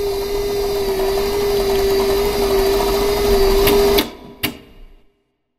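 Logo sound effect: a steady mechanical whirring with a held humming tone, stopped by sharp clicks about four seconds in, followed by one more click and a short fading tail.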